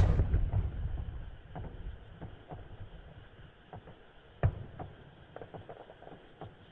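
Aerial fireworks: a shell bursts with a deep boom that rolls away over about two seconds, followed by scattered crackles and a second sharp bang about four and a half seconds in.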